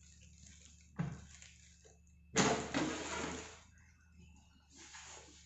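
Handling of a new air fryer's parts and packaging: three bursts of rustling and clatter, the loudest about two and a half seconds in, each dying away within about a second.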